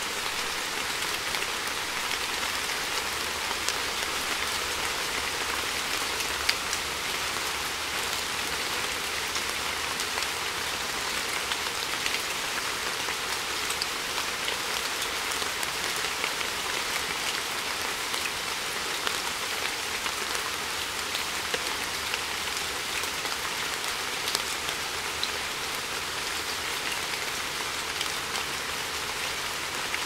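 Heavy rain falling on a metal barrel whose top is covered with pooled water: a steady rush of dense splashing patter, with occasional louder single drop hits standing out.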